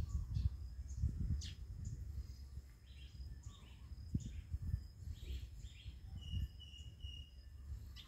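Cicadas buzzing in one steady, high, thin whine, with birds chirping in short calls over it and a repeated short call from about six seconds in. Gusty wind rumbles on the microphone underneath.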